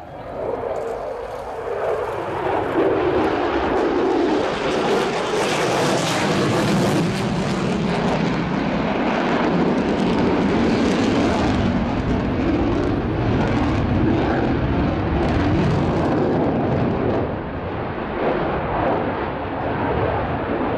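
Jet noise from a Lockheed Martin F-22A Raptor's twin Pratt & Whitney F119 turbofans flying its display. The sound builds quickly in the first two seconds while a tone slides down in pitch, then stays loud and steady.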